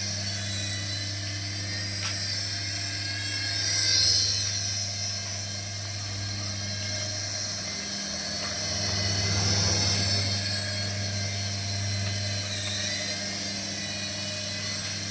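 Small electric motor of a battery-powered toy whirring steadily with a high whine. It grows louder briefly about four seconds in and again around ten seconds.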